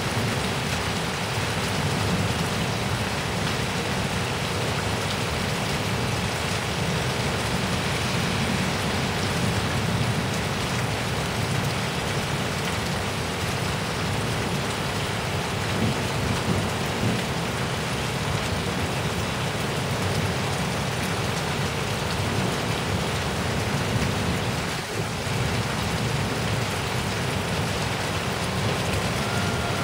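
Heavy thunderstorm rain pouring steadily, with strong wind gusting over the microphone as a low rumble. Right at the end a siren starts up, falling in pitch.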